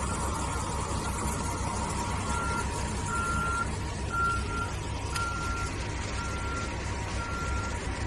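A machine's reversing alarm beeps about once a second, the beeps becoming clear a couple of seconds in, over a steady low machinery rumble.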